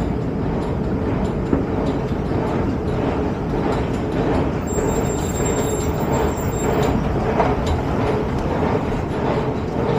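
Steady dense rumble of an underground rail station concourse and platform, with a thin high-pitched whine for about two seconds midway.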